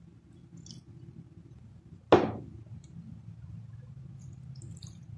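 A single sharp knock of a kitchen utensil against a metal pot or dish about two seconds in, over a faint, steady low hum.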